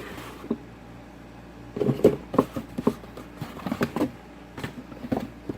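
Cardboard boxes being lifted out of a packed shipping carton: a string of irregular knocks and scuffs starting about two seconds in.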